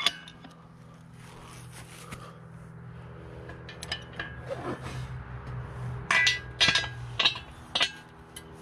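Hydraulic ram of a folding engine hoist being pumped with its steel handle, raising the boom: metal scrapes and clinks, with a run of sharp clicks in the second half about half a second apart. A steady low hum runs underneath.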